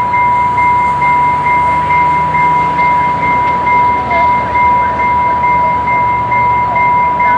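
Railway warning bell ringing steadily at about two strikes a second, each strike swelling and dying away over a sustained ring.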